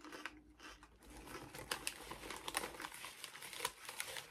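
Lay's Limón potato chip bag crinkling and crackling as it is handled, in many quick irregular crackles.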